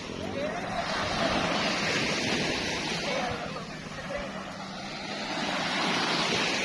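Surf washing up on the beach, swelling twice, with faint voices of people in the distance.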